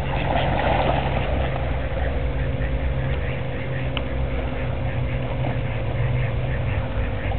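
Mallards splashing in pond water during the first second and a half, over a steady low rumble and a constant hum; a single short click about four seconds in.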